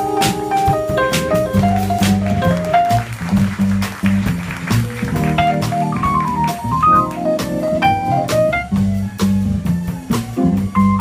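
Small jazz combo playing live: a saxophone melody over a drum kit with cymbals and keyboard accompaniment. The melodic line drops out briefly near the middle and then comes back.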